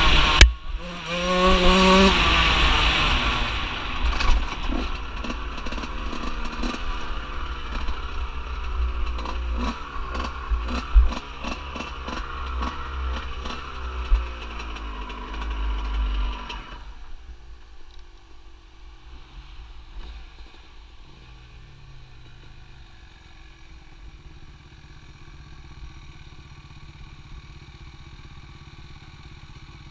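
Off-road vehicle engine running along a dirt trail, revving up over the first few seconds, with stones clattering under the tyres and a low rumble. About 17 seconds in the engine drops to a quiet, low, steady run and the clatter stops.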